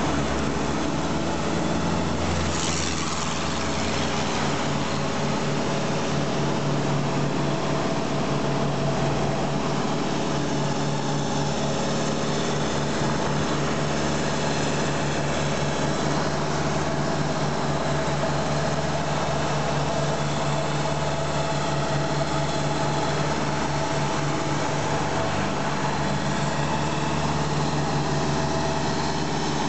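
Engine of road-construction machinery running steadily, with a short hiss about two and a half seconds in.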